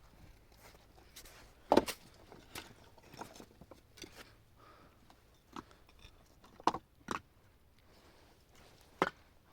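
Scattered short knocks and clatters of objects being handled. The loudest comes about two seconds in, with a pair around seven seconds and another near the end.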